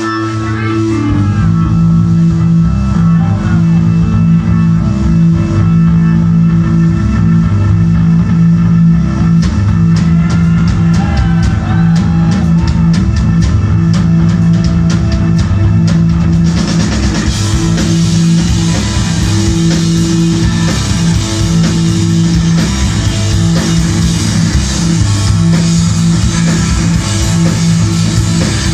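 Live rock band playing loudly. A repeating low bass riff starts about a second in, drum hits build over it, and the whole band with cymbals comes in fully around sixteen seconds in.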